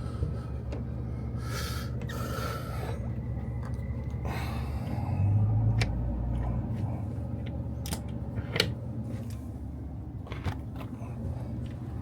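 Scattered sharp clicks and brief scraping from something being handled, over a steady low hum.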